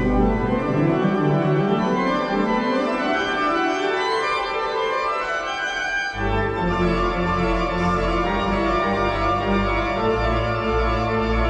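Organ music with held chords and a moving middle line. The deep bass notes drop out near the start and come back in about six seconds in.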